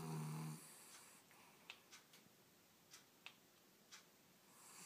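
Dog snoring. One snore ends about half a second in, and a quiet pause of several seconds follows, broken only by a few faint ticks. The next snore starts just before the end.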